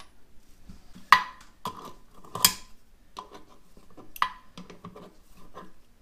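Metal clinks and clicks of a washer and nut going onto a toilet's brass closet bolt and being turned with a small wrench. Two sharper clinks stand out, about a second and about two and a half seconds in, among lighter ticks.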